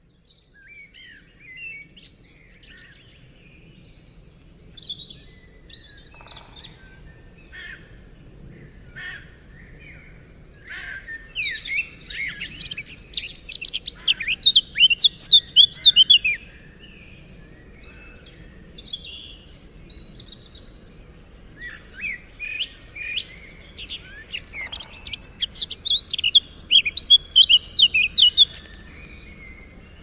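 A flock of gulls calling around someone feeding them: many quick, high, squealing cries, sparse at first, then crowding into two loud spells, about eleven to sixteen seconds in and again about twenty-two to twenty-nine seconds in.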